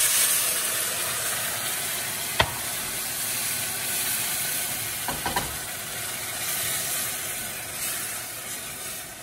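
Chicken stock poured onto rice frying in hot oil and spices in a steel pot, setting off a sudden loud sizzle and hiss of steam that slowly dies down as the rice is stirred. A sharp knock of the wooden spoon on the pot about two and a half seconds in, and a few lighter knocks about halfway through.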